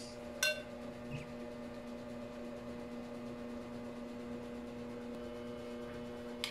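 Steady electrical hum, with a sharp click about half a second in and a smaller click near the end.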